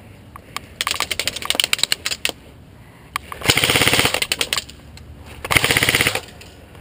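Airsoft rifle firing two rapid full-auto bursts, the first about a second long and the second about half a second, each a fast, even rattle of shots. Before them comes a scattered clatter of sharp clicks.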